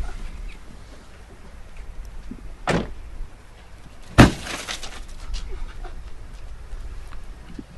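Car doors slammed hard: a dull bang a little under three seconds in, then a louder, sharper bang with a short metallic ring about four seconds in.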